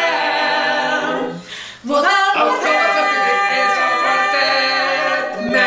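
Mixed a cappella vocal quartet, two women and two men, singing long held chords without words: one chord breaks off about a second and a half in, then a second long chord swells near the end as the final chord of the song.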